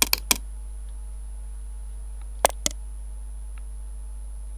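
Computer mouse button clicking: three quick clicks at the start and two more about two and a half seconds in, over a steady low hum.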